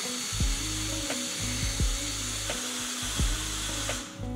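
Cordless drill running steadily, turning a flexible drive shaft to the rear-wheel gearbox of a drill-powered bike conversion; it stops about four seconds in. Background music with a steady drum beat plays underneath.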